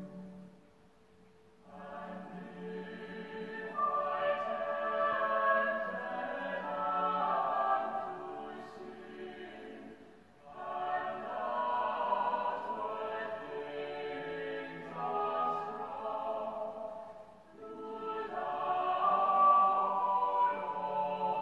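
Choir singing a hymn in long phrases, with short breaks between the lines about a second in, about ten seconds in and about seventeen seconds in.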